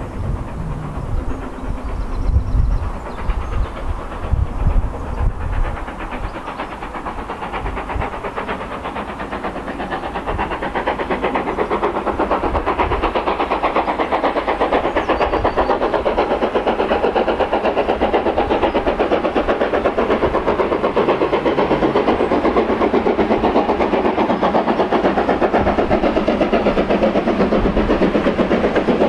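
A steam locomotive working hard as it approaches, its exhaust beat building to a loud, rapid, even chuffing from about a third of the way in. Before that there are only gusts of low rumble.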